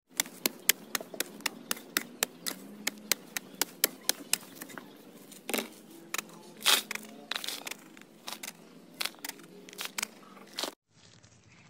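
Hoe chopping and scraping into dry, hard soil, a quick run of sharp crunchy strikes about two to three a second, a few of them louder. The strikes stop shortly before the end.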